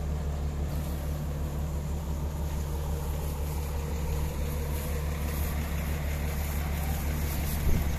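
Excavator diesel engine idling, a steady low hum at a constant speed. About halfway through, faint crinkling of plastic sheeting joins it.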